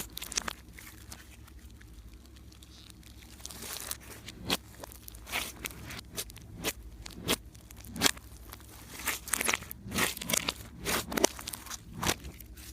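Slime being squished and pressed by hand, giving irregular crunchy crackles and pops. It is quieter for the first few seconds, then the crackles come thick and fast.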